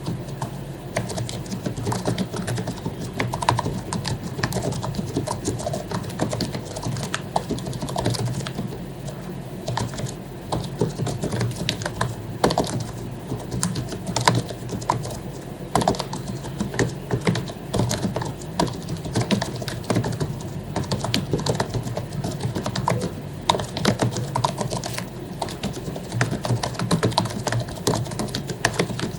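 Continuous fast typing on an HP membrane keyboard whose keycaps have been lubricated: a dense, steady stream of soft key clicks with no pauses.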